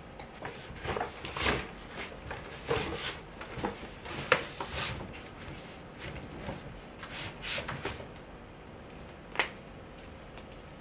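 Scattered knocks and clicks of things being handled and set against a wooden wall cabinet, with two sharper clicks about four and nine seconds in.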